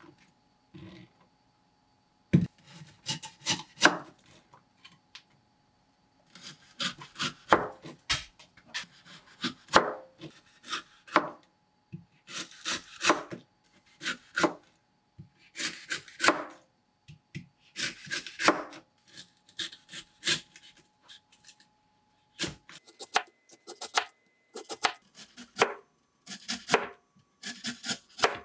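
Kitchen knife slicing a peeled lotus root into thin rounds on a cutting board: crisp cutting strokes, each ending in a tap of the blade on the board, in short runs of a few strokes with brief pauses between.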